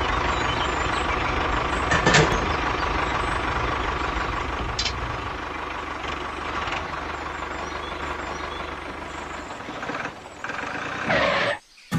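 Tractor engine running steadily, getting somewhat quieter after the first few seconds, with a sharp click about two seconds in and a short whoosh near the end.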